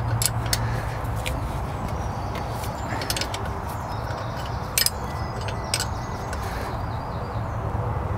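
Scattered sharp metallic clicks from a wrench being worked on a stubborn exhaust clamp bolt on a Saab's Garrett GT1752 turbo, which gives only a tiny turn each stroke, over a steady low hum.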